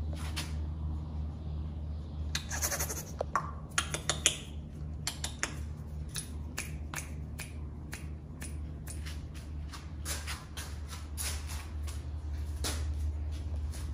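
Scattered sharp clicks and taps over a steady low hum, the clicks bunched and loudest around three to four seconds in.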